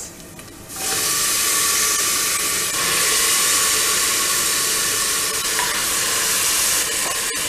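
Raw mutton pieces going into hot oil in a pressure cooker, setting off sizzling that starts suddenly about a second in and then holds steady.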